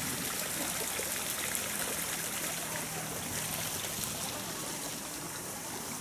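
Water running and trickling steadily, a continuous splashing hiss.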